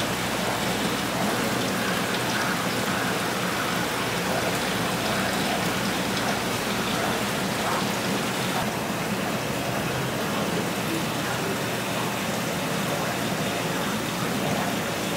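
Steady rushing and splashing of water from aquarium filters and air bubblers in rows of fish tanks, easing slightly about nine seconds in.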